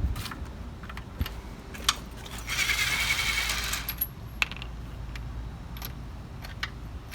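Metal clinks of a lug wrench working the lug nuts on a car wheel, with a longer metallic rattle lasting under two seconds near the middle, as the nuts are loosened for the wheel to come off.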